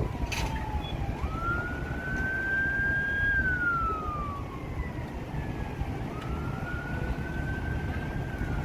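Emergency vehicle siren wailing. It climbs about a second in, holds, slides down, then climbs and holds again, over steady low-pitched noise.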